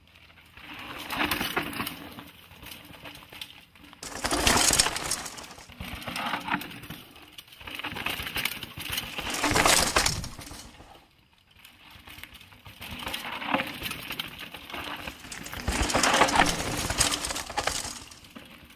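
Mountain bike riding down a rocky dirt trail: tyres crunching and skidding over loose gravel and rock, with clattering from the bike, in several surges that swell and fade.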